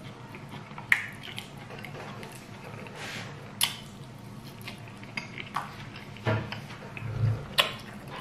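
Eating by hand from a ceramic plate: fingers scrape and pick up soft fried sweet potato and scrambled egg, with three sharp clicks against the plate and moist chewing sounds.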